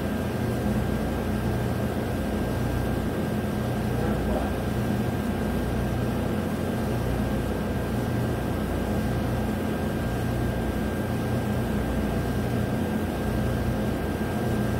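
Steady hum of a shop heating furnace's blower, with a faint high steady tone over it.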